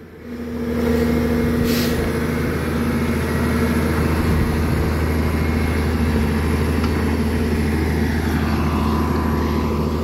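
Engine of a digging machine running steadily under work, picking up during the first second and holding a constant pitch.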